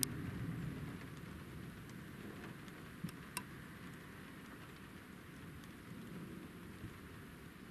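Steady rain falling in a thunderstorm, with continuous wind rumbling on the microphone, strongest in the first second. A few sharp ticks cut through, two close together about three seconds in.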